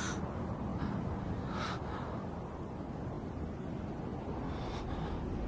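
Steady low wind rumble outdoors, with a few faint breathy puffs.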